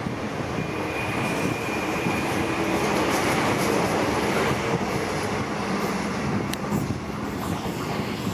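Electric commuter trains running through the station: steady rolling noise of wheels on rail, with a thin high whine over the first couple of seconds and a single sharp click about three-quarters of the way through.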